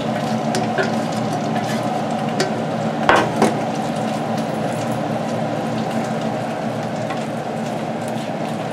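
A metal spoon scraping and spreading a thick sauce out of a frying pan over tater tots in a glass casserole dish, with a couple of sharp knocks about three seconds in, over a steady kitchen hum.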